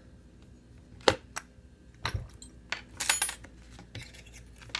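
Small metal clicks and clinks of a Medeco M3 lock and metal lockpicking tools being handled, with a short burst of metallic jingling about three seconds in.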